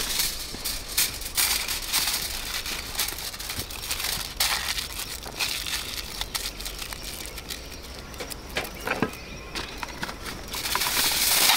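Aluminium foil crinkling and rustling in irregular bursts as sweet potatoes are wrapped in it by hand, quieter in the middle and busier again near the end.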